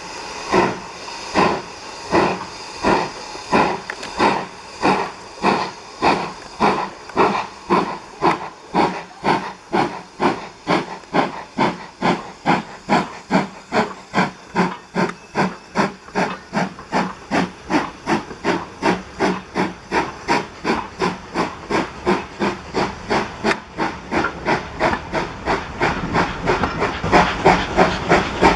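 BR Standard steam locomotive exhaust, led by Class 2 2-6-0 78018, chuffing as the train pulls away. The beats come evenly and quicken from about two a second to about three, over a hiss of steam, growing louder near the end.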